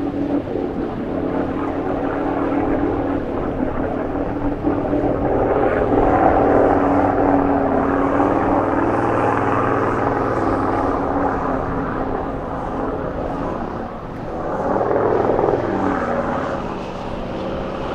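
Four-wheel-drive vehicle's engine running steadily under load while it drives through a deep river crossing, with water rushing around it. The rush swells about six seconds in and again about fifteen seconds in.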